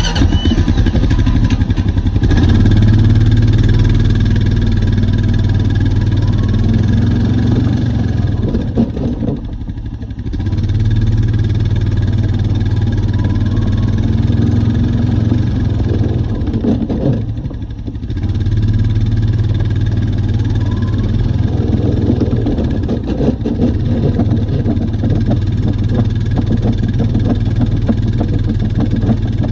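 Honda Rubicon 520 ATV being driven, its single-cylinder engine running steadily and easing off twice, about ten and eighteen seconds in. This is the running in which the owner reports a grinding noise.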